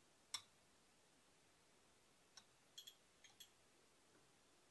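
Near silence broken by a sharp clink about a third of a second in, then a few faint clicks a couple of seconds later. These are a metal spoon and a small syrup bottle touching the rim of a drinking glass while syrup is poured over the back of the spoon.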